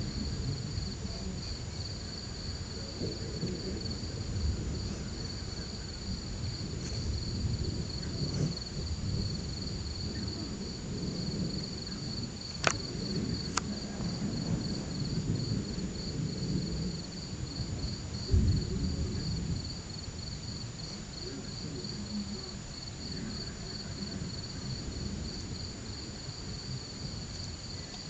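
Crickets chirping in an even, steady pulse, with a steady high insect trill above them. Under them runs an uneven low rumble that swells briefly about two-thirds of the way through, and two sharp clicks sound near the middle.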